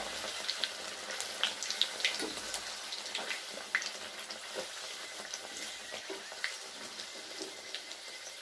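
Bhatura deep-frying in hot oil: a steady sizzle with frequent crackling pops.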